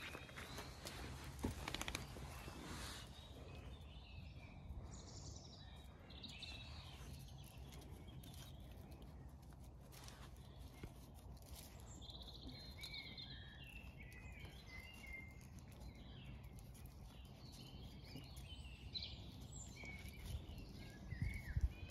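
Faint birds chirping in short, scattered calls over a low steady outdoor rumble, with a few soft taps near the start.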